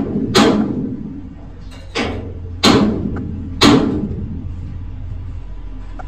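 Steel stove-frame ring worked with pliers against a steel plate: four sharp metal clanks, each with a short fading tail, the last about two-thirds of the way through. A low steady hum runs underneath.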